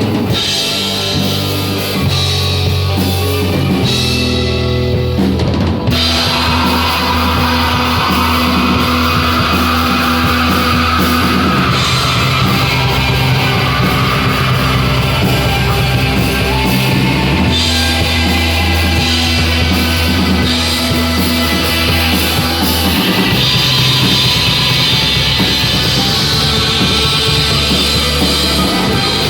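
Rock band music with a full drum kit, sustained bass notes and distorted guitars; the full band comes in about six seconds in.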